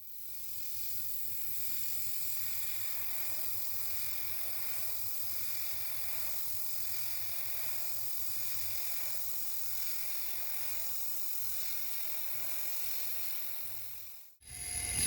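Steady hiss of a shop power tool working metal, over a faint low hum. It fades in at the start and cuts out shortly before the end.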